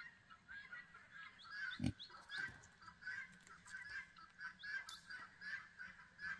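Farm fowl calling in short repeated calls, several a second, with a single dull knock about two seconds in.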